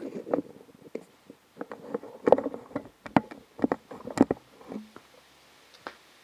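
Handling noise: irregular clicks, taps and knocks of objects being handled, with the loudest knocks between about two and four and a half seconds in.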